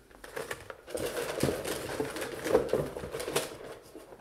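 Rustling and crinkling of packaging with small taps and clicks of cardboard as items are handled and lifted out of a cardboard box. A dense run of crackles builds about a second in and fades near the end.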